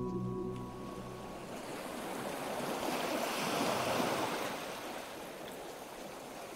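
Small wave washing up a sandy beach, swelling and then easing back, as ambient music fades out in the first second and a half.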